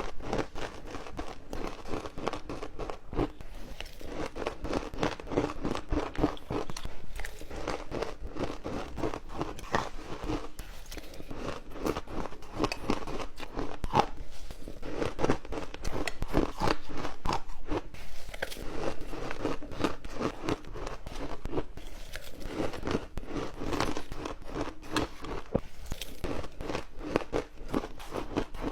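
Close-up sound of ice being bitten and chewed: continuous sharp crunching and crackling of ice cubes breaking between the teeth.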